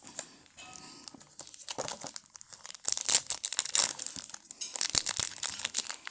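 Plastic wrapper of a trading card pack being torn open and crinkled: an irregular crackling that grows louder a few seconds in.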